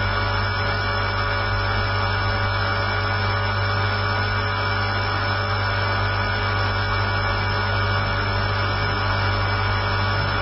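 Align T-Rex 450 electric RC helicopter running at a steady rotor speed, heard through its onboard camera: a steady low hum from the rotor blades with constant higher whining tones from the motor and gears.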